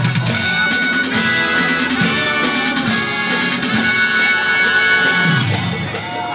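Dance music with a steady beat and plucked, guitar-like lines.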